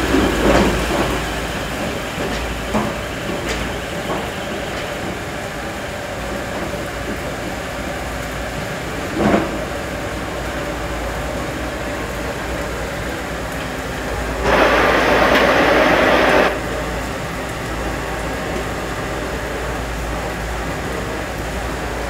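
Lianda LD 60H rotary drilling rig's engine and hydraulics running steadily as it works, with a few knocks in the first seconds, one sharp knock about nine seconds in, and a louder rushing noise lasting about two seconds about fourteen seconds in.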